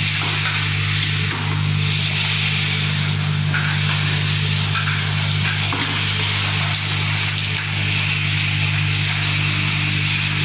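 Industrial walnut-cracking machine and separating line running: a steady motor hum under a dense hiss and rattle of cracked walnuts and shell moving through the line.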